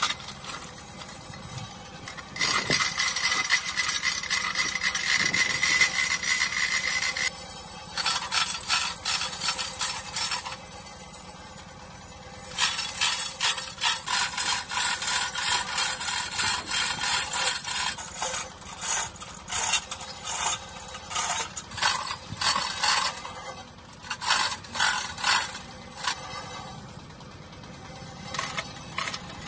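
Manual chain hoist being hauled to lift a log: its chain runs through the block, rattling and clicking rapidly in several long runs and then in shorter bursts.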